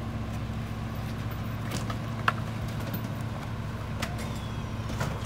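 Rear-loader garbage truck's diesel engine running steadily, with several sharp knocks and clatters as debris is thrown into the hopper; the loudest knock comes about two seconds in.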